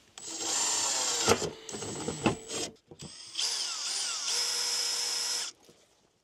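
Power drill boring a hole through a wall, running in two bursts of two to two and a half seconds with a short stop between. Its motor pitch slides down and back up early in the second burst.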